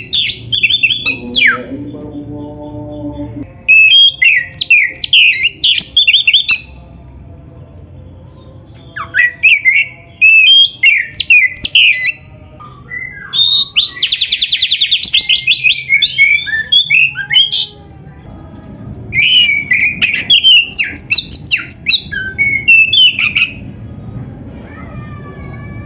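Oriental magpie-robin (kacer) singing loudly in dense phrases of rapid, varied whistles and harsh notes, each phrase a few seconds long with brief pauses between. The song is the full, fill-packed kind kept for training other songbirds, and it includes a fast trill near the middle. A lower, pitched call sounds about two seconds in.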